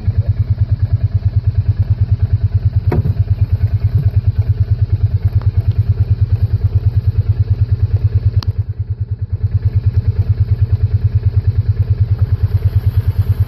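An engine idling: a steady, evenly pulsing low throb, with a sharp click about three seconds in and another about eight and a half seconds in.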